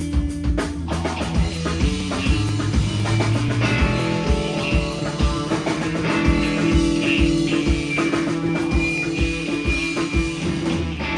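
Rock band playing: electric guitars over a steady drum beat, with a held high guitar note in the second half.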